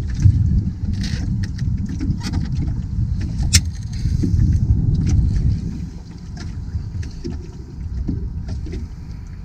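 Fishing boat's motor running, a steady low rumble that eases somewhat about six seconds in, with scattered light clicks and knocks over it.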